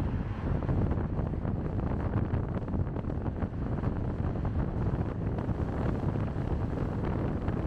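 Steady road and wind noise from a car driving along, mostly a low rumble, with wind buffeting the microphone.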